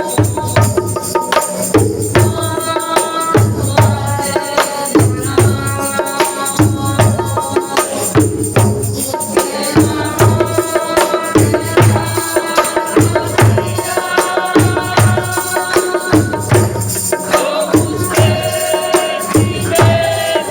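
Music with a steady low drum beat and a melody over it.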